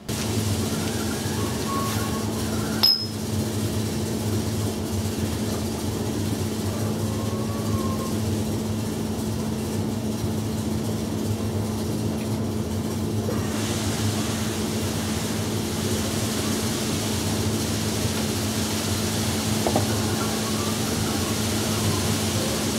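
Metal tools and mower parts being handled over a steady background hum, with one sharp metallic clink about three seconds in and a softer knock near the end.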